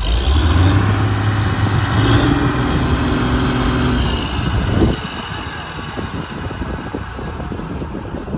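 Combine harvester's six-cylinder diesel engine running loud and steady with a deep hum, then cutting off suddenly about five seconds in.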